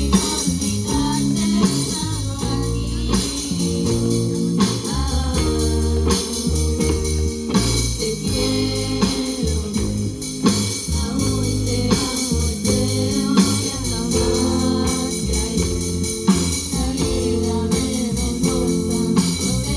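A band's song with a sung lead vocal over bass, guitar and percussion on a steady beat.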